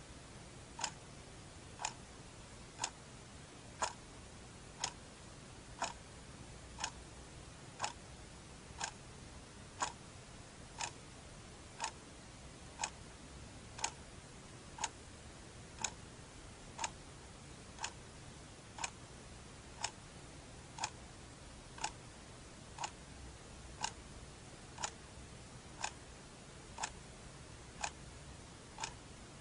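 Clock ticking steadily, one sharp tick about every second, over a faint background hiss.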